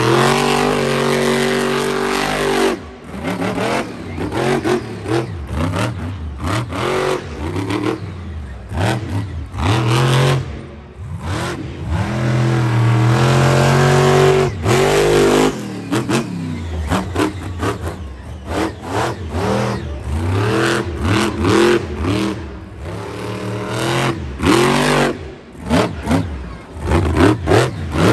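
Monster truck's supercharged V8 revving hard and repeatedly cutting back and picking up again, with long full-throttle pulls near the start and again in the middle, and quick stabs of the throttle toward the end.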